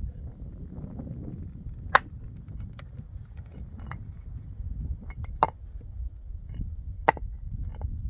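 Scattered sharp knocks over a low rumble, three of them louder: about two seconds in, about five and a half, and about seven.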